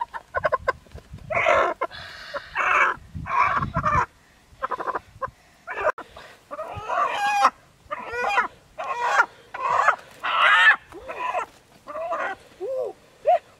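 Chicken squawking and clucking over and over, a string of loud separate calls, while it is held down by hand. Near the end come a few short, high cries that rise and fall.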